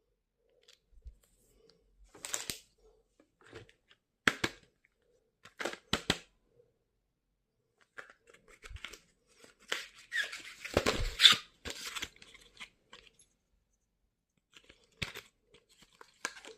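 Stationery packaging being handled and opened by hand: scattered bursts of tearing and rustling with light knocks, busiest about two-thirds of the way through.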